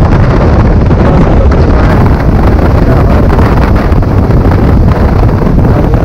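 Loud, steady wind rushing over the camera microphone of a BMW F800 motorcycle riding at road speed, mixed with the bike's running.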